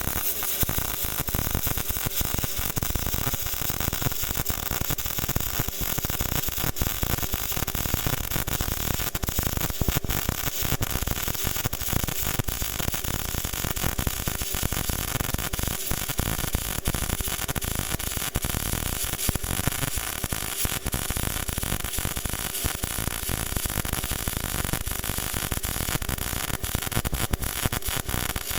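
Welding arc of a BestArc MIG145 inverter welder running continuously on pure argon shielding gas, with a dense, steady crackle that starts suddenly just before and holds throughout.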